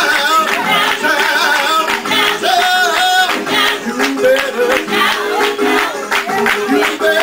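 Church worship music: voices singing over instruments, with a steady beat.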